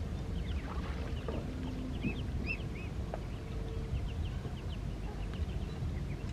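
A flock of ducklings peeping: many short, high chirps scattered throughout, a few louder arched ones about two seconds in, over a steady low rumble.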